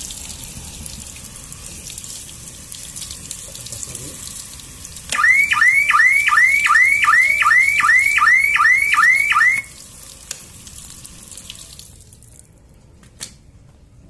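Tap water splashing over a plastic outdoor alarm box. About five seconds in, the box's built-in siren sounds for about four and a half seconds while soaked, in a loud, rapid rising whoop about three times a second, then cuts off. The splashing fades away, and there is one short click near the end.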